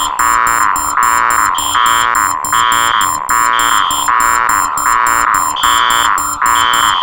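Four electronic alarm sounds playing at once in a loud, harsh mix: a steady high tone under falling tones that repeat about twice a second, with a higher beep cutting in about once a second.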